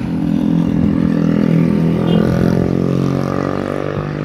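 A motor vehicle engine running close by, a steady hum whose pitch shifts a little around the middle.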